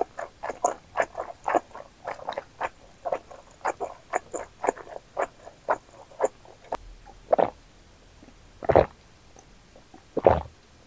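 Close-miked wet chewing of a mouthful of chewy wide glass noodles in Buldak sauce, about three to four sticky smacks a second. The chewing stops after about six seconds, then come three separate louder swallowing gulps, the last as she drinks from a glass.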